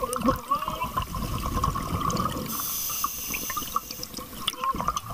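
A scuba diver's breathing heard underwater: rumbling exhaled bubbles, and a hiss of inhalation through the regulator about two and a half seconds in. A steady thin whine runs underneath.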